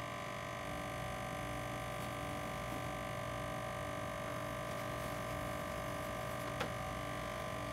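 Steady electrical hum with several constant tones and no other activity, with one faint tick late on.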